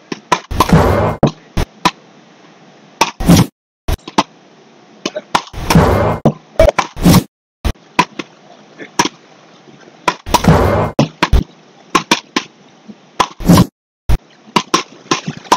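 Beach-racket paddles hitting a small rubber ball in a fast rally: a sharp whack every two to three seconds, with lighter clicks between.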